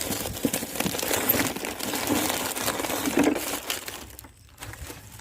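Crinkling and rustling of something being handled, full of small clicks, starting suddenly and dying away about four seconds in.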